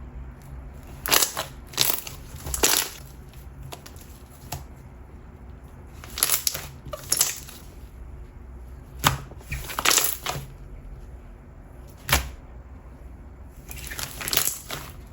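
Watery, loose water jelly slime being squished and stretched by hand, giving short sticky crackling squelches in separate bursts every second or two.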